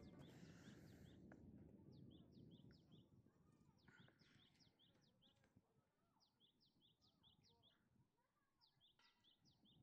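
Faint outdoor ambience with a small songbird calling about five times, each phrase a quick run of high, downward-slurred chirps.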